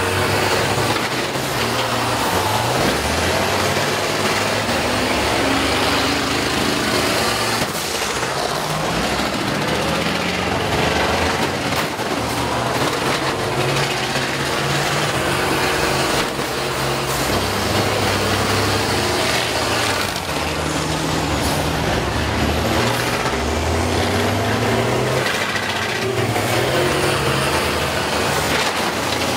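School bus engines revving up and down under heavy load as the buses ram and push against each other, with scattered knocks and crunches of metal.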